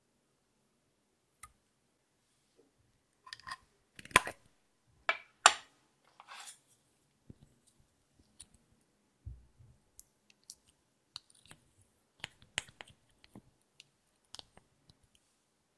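Small plastic makeup containers being handled, with two sharp clicks about four and five and a half seconds in. Soft scraping ticks follow as a wooden stick scoops lip balm out of a small plastic pot.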